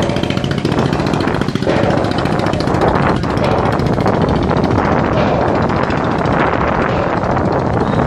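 A motor running steadily with a fast, even chugging beat, with wind noise on the microphone growing after about two seconds.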